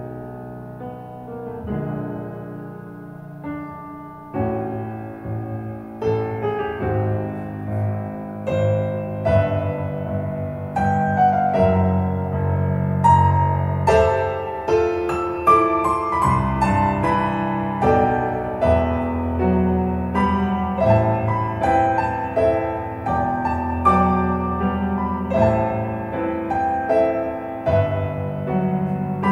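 Solo piano music played back through small Dali Menuet bookshelf speakers driven by a NAD 304 amplifier and picked up by a recorder in the room. The playing is soft for the first few seconds, then grows louder and fuller after about four seconds.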